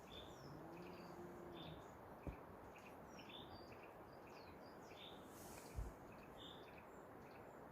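Faint birdsong: several small birds chirping repeatedly in short, high calls and quick falling notes, over a light hiss of background noise. Two soft knocks, one about two seconds in and one near the end.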